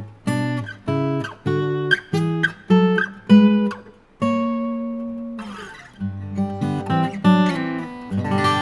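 TYMA D-25CE dreadnought acoustic guitar, solid Engelmann spruce top with D'Addario EXP16 strings, played fingerstyle: a run of plucked notes and chords. About halfway one long note rings and slides down in pitch, and the passage ends on a chord left ringing.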